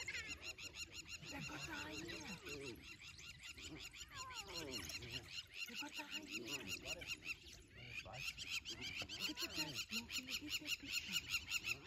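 Spotted hyenas and African wild dogs calling as they fight: several bursts of squealing, yelping calls that slide up and down in pitch. A steady fast high-pitched pulsing runs behind them.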